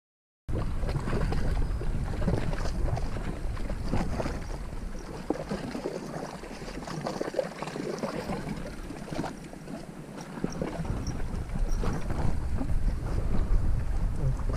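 Wind buffeting the camera microphone in a low rumble, with small waves lapping against a concrete embankment. The rumble eases for a few seconds in the middle, then picks up again.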